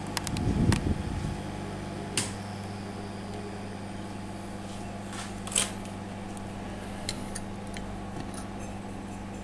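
Steady electrical mains hum from the repair bench, with a dull handling bump just under a second in and a few small sharp clicks and taps as parts and crocodile clips are handled.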